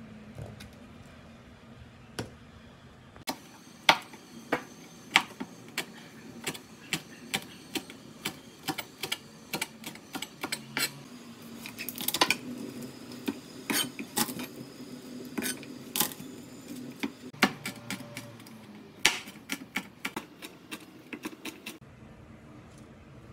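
Chef's knife chopping on a plastic cutting board, cutting garlic, red chili and scallions: a long series of sharp knocks, irregular, with quick runs of strokes. The knocking starts a few seconds in and stops shortly before the end.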